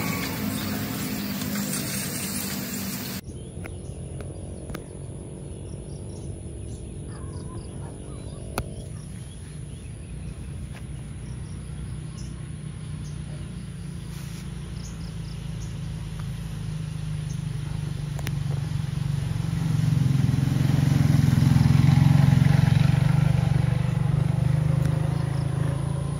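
A small engine running steadily with a low rumble, swelling to its loudest about twenty seconds in and easing slightly near the end. It follows an abrupt cut from a louder, fuller sound about three seconds in.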